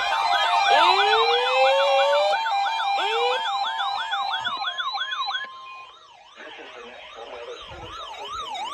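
Weather radio receivers sounding their alert alarms, set off by the weekly test's header: a loud electronic warbling siren of about three sweeps a second, with a pulsing tone under it at first and two rising whoops about one and three seconds in. The fast warble stops about five and a half seconds in, leaving a fainter, slower up-and-down wail.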